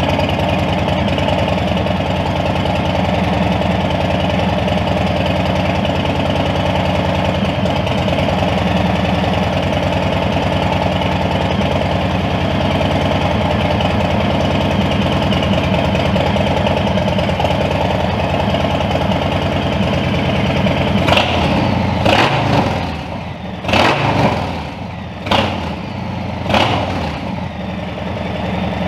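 Harley-Davidson FXDR's Milwaukee-Eight 114 V-twin running loud and steady through a newly fitted Two Brothers two-into-one exhaust. About 21 s in, the throttle is blipped five times, each rev rising sharply and falling back to idle.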